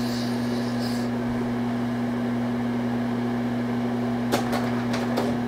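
Slide projector's cooling fan humming steadily with a constant low electrical tone, and one click of the slide change a little over four seconds in.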